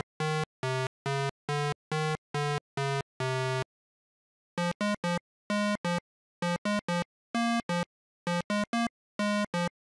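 Chiptune-style synthesizer music of short, clean electronic notes: an even run of about three notes a second that ends on a longer note, a pause of about a second, then a skipping pattern of quick notes in pairs and threes.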